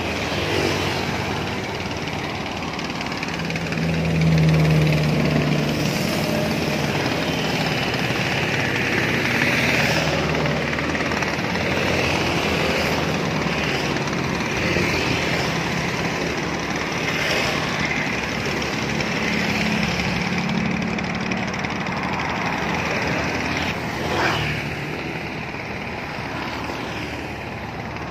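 Motorcycles and cars passing on the bridge roadway, their engines swelling and fading over a steady traffic noise, loudest a few seconds in and again past the middle. A short knock comes near the end.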